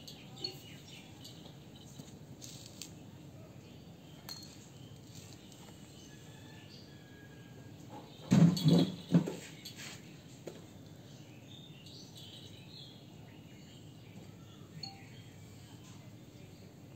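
Quiet outdoor background with faint bird and insect chirps, broken about eight seconds in by three loud knocks in quick succession.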